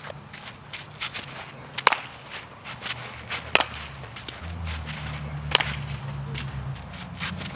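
Softball bat hitting a softball three times: sharp cracks about two seconds apart.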